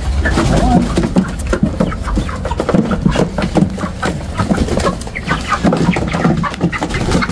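Young chickens, about eight weeks old, making short, high calls and clucks over scattered knocks and rustles as they are handled.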